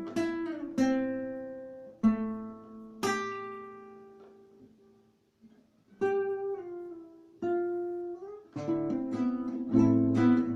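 Solo acoustic guitar: plucked chords and single notes ring out and fade almost to silence midway. Then a few single notes follow, one sliding up in pitch, before busier strummed playing picks up near the end.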